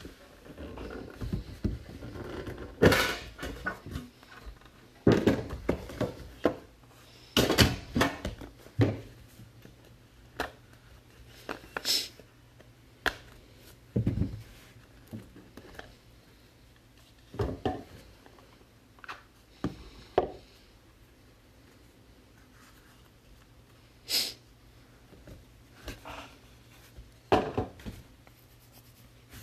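Trading-card boxes and packaging being handled on a table: irregular rustles, clicks and knocks. They are busiest in the first several seconds and thin out to single knocks later.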